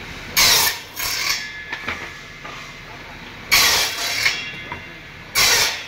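Bench-mounted circular saw cutting pallet boards: four short bursts of saw noise, each under a second, about half a second in, at a second, at three and a half seconds and near the end, with the saw running steadily between cuts.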